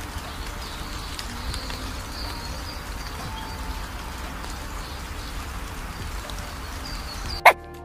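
Steady outdoor ambience: an even hiss over a low rumble, with faint high chirps. Near the end it changes abruptly and a single short, sharp pitched sound stands out.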